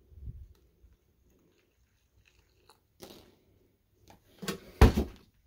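Paperboard carton being handled: a soft thump, a click, then crinkly crunching of the cardboard about four and a half seconds in, the loudest part.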